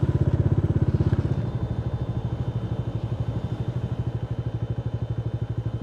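Motorcycle engine running under way, a steady low pulsing exhaust beat; the engine note eases and drops a little about a second and a half in.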